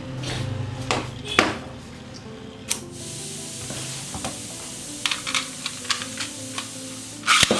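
Background music over scattered clicks and rubbing from a plastic Beyblade stadium and its parts being handled, with a louder clatter near the end.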